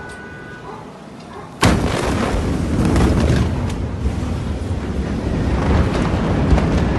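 The blast of the 2020 Beirut port ammonium nitrate explosion hitting the microphone suddenly about a second and a half in, followed by a continuous loud, deep rumble.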